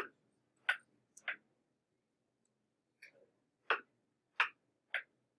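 A stylus tapping on a tablet screen during handwriting: a series of short, sharp clicks, a few in the first second and a half, a gap, then three more in the second half.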